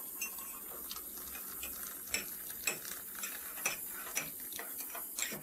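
Light ticking, about two ticks a second, over a faint steady hiss.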